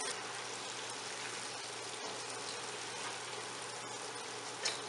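Flour-coated chicken pieces deep-frying in hot oil in a wok, a steady sizzling.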